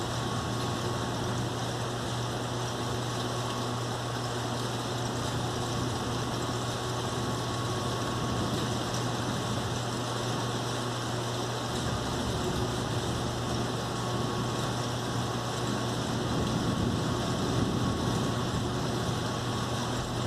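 Steady hiss of a rainstorm under a constant low hum, with a low rumble swelling near the end.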